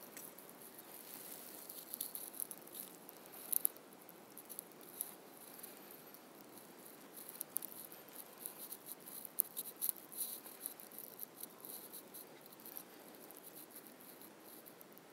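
Faint irregular crackling and ticking clicks over a steady low hiss, busiest a couple of seconds in and again midway.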